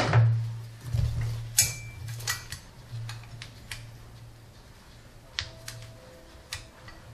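Scattered metallic clicks and clinks of hands and tools working on metal parts in a car engine bay, over a steady low hum that fades out near the end.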